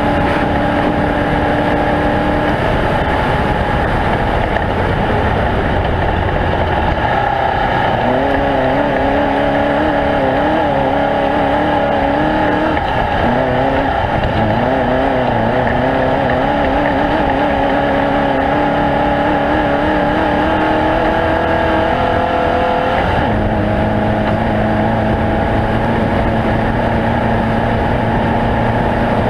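Off-road race vehicle's engine running steadily loud, its pitch wavering up and down with the throttle. About 23 seconds in, the sound drops to a steadier, lower note.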